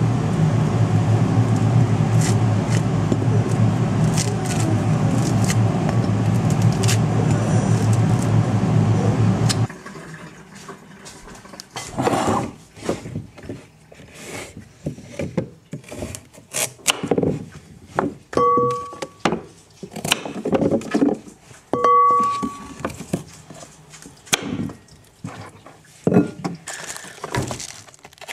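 A loud, steady drone for about the first ten seconds that stops abruptly. Then a kitchen knife cutting carrots and romaine lettuce on a wooden cutting board, in irregular knocks and chops, with two short tones around the middle.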